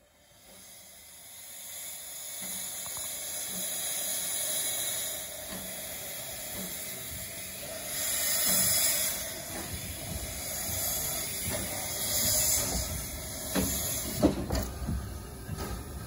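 Steam hissing from the narrow-gauge steam locomotive Gelert as it blows steam out low down at its cylinders. The hiss builds over the first few seconds and surges louder about 8 and 12 seconds in, with a few sharp knocks near the end.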